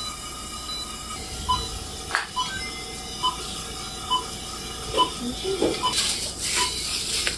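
Patient monitor beeping in time with the pulse during an upper endoscopy: a short, steady-pitched beep a little under once a second. There is a sharp click about two seconds in and a hiss near the end.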